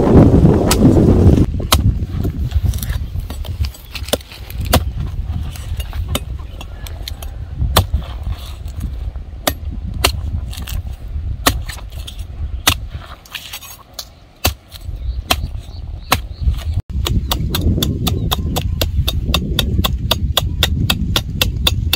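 Machete blade chopping into the husk of a green coconut: sharp separate cuts about once a second, becoming quicker, several a second, in the last few seconds.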